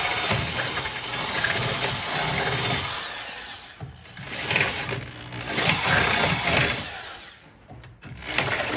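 Corded electric drill with a twist bit boring through a plastic skid plate, the bit worked around to oval out the hole. It runs for about three seconds, then in shorter bursts with pauses between.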